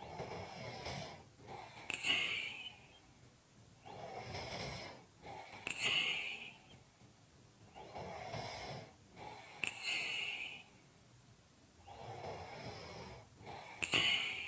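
A person snoring with slow, heavy breaths, one breath in and out about every four seconds. Each breath comes in two rushing parts, the second hissier and higher, followed by a short pause.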